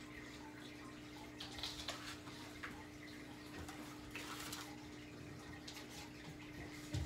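Quiet household background: a steady low hum with scattered faint rustles and clicks, the clearest a short hiss about four seconds in.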